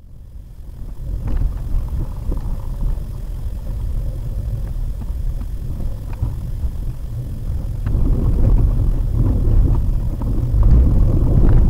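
Low road and engine rumble inside a Maruti Suzuki WagonR's cabin as it drives over a rough road, with a few scattered knocks from bumps. It fades in at the start and grows louder about eight seconds in.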